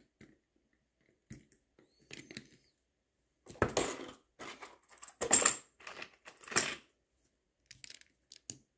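Small metal watchmaking tools and parts being handled and set down on a bench: scattered light clicks and clinks, with a few louder clattering bursts in the middle.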